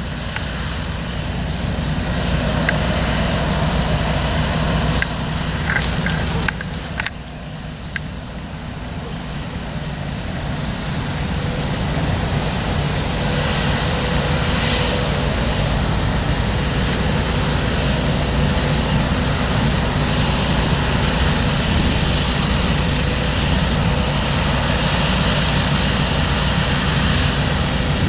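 Claas Lexion 770 combine harvester running while cutting wheat: a steady, loud drone of the engine and threshing machinery. It dips briefly about a quarter of the way in, then grows louder and stays steady.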